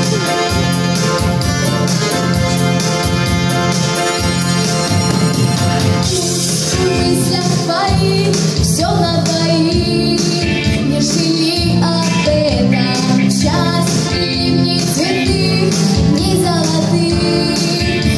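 Song music with a steady beat, played over the hall's sound system. For about the first six seconds it is instrumental; then a girl comes in singing into a microphone.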